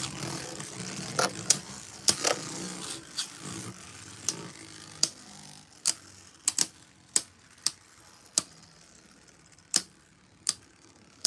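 Two Beyblade Burst tops, Hazard Kerbeus and Vise Leopard, spinning in a plastic Beyblade stadium and clacking against each other in sharp, irregular hits, more than a dozen. A faint whir of their spinning fades over the first few seconds.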